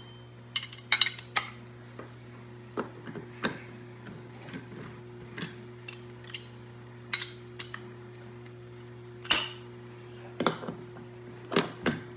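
Sharp clicks and knocks of hand tools and metal hardware as a large RC monster truck wheel is fitted onto its hub and its wheel nut done up, scattered irregularly with one louder knock about nine seconds in, over a steady low hum.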